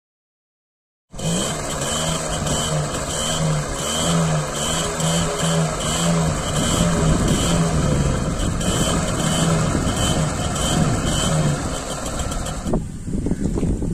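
TVS 50 moped's small two-stroke single-cylinder engine running steadily on its stand. It cuts in abruptly about a second in, with a regular pulse of roughly two beats a second.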